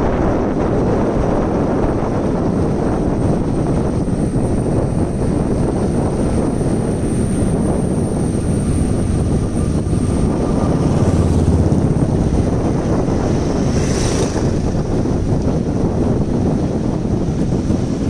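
Wind rushing over the microphone of a moving two-wheeler, with steady engine and road noise underneath. A louder low rumble about eleven seconds in as an oncoming motorcycle passes.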